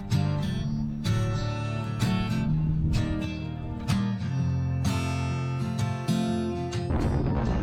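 Background music led by strummed acoustic guitar, with a chord struck about once a second over sustained low notes.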